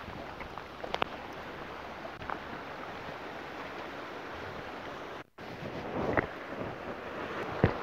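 Ocean surf washing over the rocks with wind buffeting the microphone, a steady hiss with a few light knocks; the sound cuts out for a moment about five seconds in.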